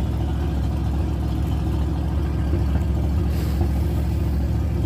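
An engine idling steadily, a low even hum, with a short hiss about three and a half seconds in.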